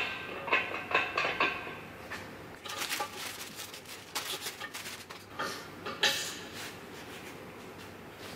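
Light metal clinks in the first second and a half, then scattered rustling and handling noises as gloved hands fit small parts onto a bare BMW E30 engine block.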